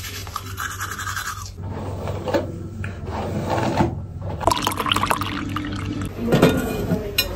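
Manual toothbrush scrubbing teeth in quick back-and-forth strokes, giving way about a second and a half in to a run of short, uneven everyday handling sounds.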